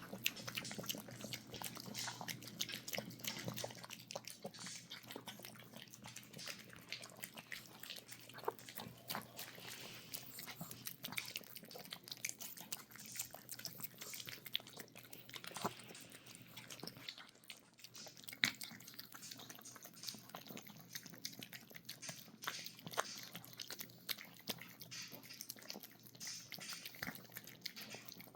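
Chihuahuas eating soft food from their dishes: a faint, continual run of small chewing and mouth-smacking clicks.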